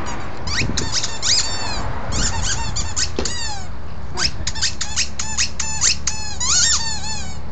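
Squeaky pet toy squeaked over and over as the pet chews and plays with it: short, high squeaks that fall in pitch, coming in quick runs.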